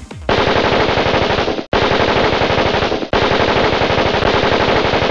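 Automatic rifle fire in rapid continuous bursts: two bursts of about a second and a half each, then a third that keeps going. Each burst starts and stops abruptly.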